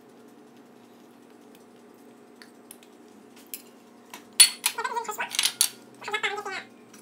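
Sharp clinks of a plate and utensils on the baking tray, the loudest about halfway through, as ground meat is pushed off a plate onto a pizza. Over them come two short, wavering, high-pitched calls, each about a second long.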